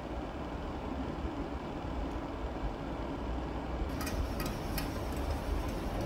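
A steady low rumble, with a few light clicks and knocks from about four seconds in as plastic gallon jugs are handled and set on a wooden cabinet shelf.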